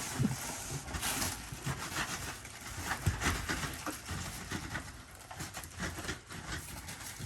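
Cardboard box and packing being pulled apart and handled by hand: irregular rustling, scraping and light knocks.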